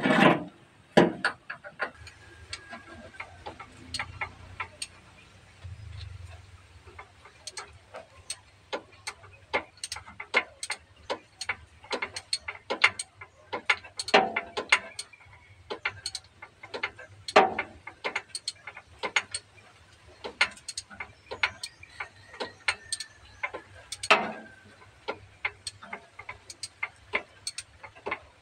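Socket ratchet wrench clicking in short irregular runs as a bolt on a truck's starter motor is turned, with a loud clatter at the start and several louder knocks in between.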